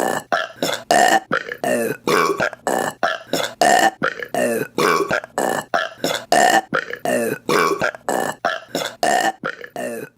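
A rapid run of short, loud women's burps, one after another at about two to three a second.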